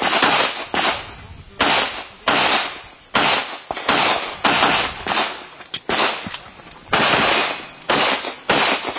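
Handgun shots fired in a practical-shooting stage run: about a dozen shots, unevenly spaced about half a second to a second apart, each trailing off in echo.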